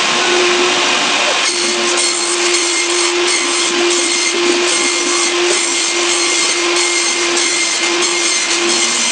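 Table saw running and ripping a thin white sheet along the fence, with a steady motor hum under the cutting hiss. The hiss pulses roughly twice a second from about a second and a half in as the sheet is pushed through.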